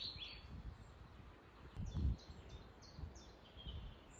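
Small birds chirping in short, repeated high notes, with low gusts of wind buffeting the microphone; the strongest gust comes about two seconds in.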